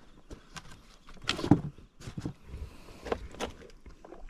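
Scattered light clicks and knocks of someone moving about and handling gear in a small wooden outrigger boat, with a louder knock about a second and a half in.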